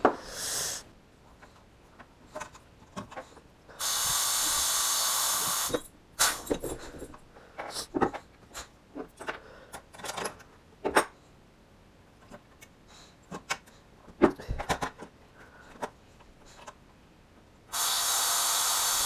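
Pneumatic rivet squeezer with a C-yoke setting rivets: two hisses of compressed air, each about two seconds long, about four seconds in and again near the end. Between them come short clicks and knocks as rivets and sheet-aluminium parts are handled.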